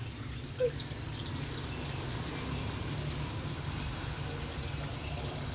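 Water from a hose pouring steadily into a large pot of chicken pieces and sauce, a continuous splashing hiss over a steady low hum.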